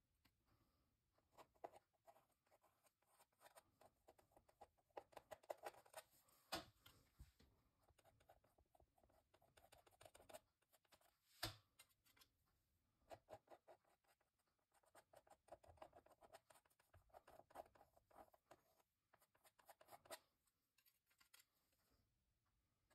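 Faint scraping and dabbing of a small metal palette knife spreading thick acrylic paint over a textured canvas and picking paint up from a paper palette, in short runs of strokes with two sharper clicks along the way.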